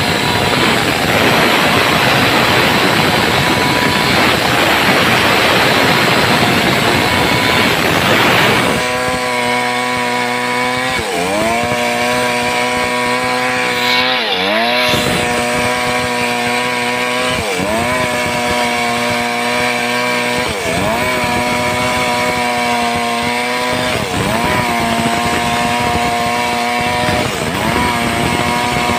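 Stihl chainsaw ripping a log lengthwise at full throttle. For the first nine seconds or so it is a rough, noisy cutting sound. After that it settles into a high, steady engine note whose pitch dips briefly and recovers about every three seconds as the bar is fed through the wood.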